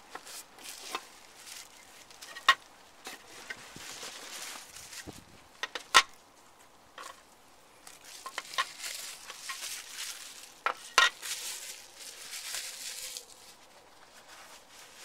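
Bubble wrap crinkling and rustling as plastic alarm-box covers are unwrapped and lifted out of a cardboard carton, with scattered sharp clicks and knocks of hard plastic being handled and set down. The loudest knocks come about 2.5, 6 and 11 seconds in.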